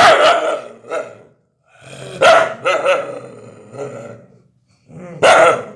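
Angry dog barking and growling in three loud bouts, the longest in the middle.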